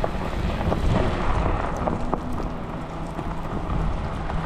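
Wind rushing over the microphone while cycling through a snowstorm: a steady low rumble with a few faint clicks.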